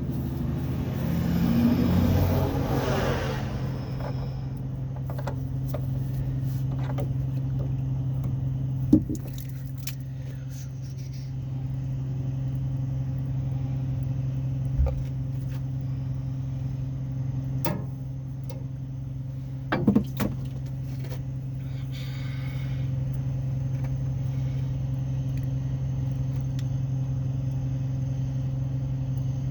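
A steady low engine hum runs throughout, with a rustle near the start and a few sharp clicks and knocks of handling later on.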